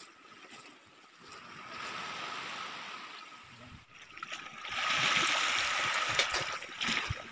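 Sea water washing over a rocky, pebbly shore: a steady hiss that grows louder about five seconds in.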